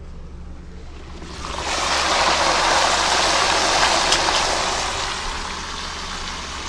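Whole flour-dredged blacktail snapper deep-frying in a wok of hot oil: the sizzle swells sharply about a second and a half in as the fish goes into the oil, then slowly eases.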